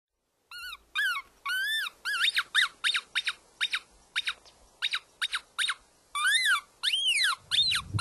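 Coyote yips and short howls: a run of high-pitched cries, each rising and falling in pitch, quick and evenly spaced at about three a second in the middle, longer and more drawn out near the end.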